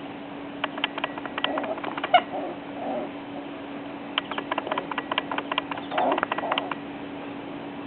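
Eight-week-old puppies: a short whimper about two seconds in, among many small clicks and shuffling sounds, over a steady hum.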